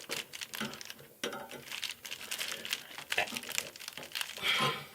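Rustling and irregular small clicks of hands working on metal conduit and its fittings, twisting and tightening them.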